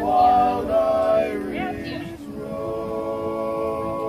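Men's barbershop quartet singing a cappella in close four-part harmony, the closing line of the song. About two seconds in, the voices settle onto the long held final chord.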